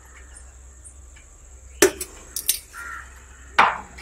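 A few sharp metal clinks of a small steel cup knocking against a steel mixing bowl as rice flour is tipped and tapped out of it.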